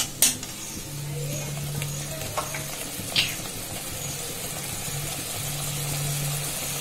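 Milky curry gravy simmering and sizzling in a steel kadai while a metal spatula stirs it, with a sharp tap of the spatula against the pan about three seconds in.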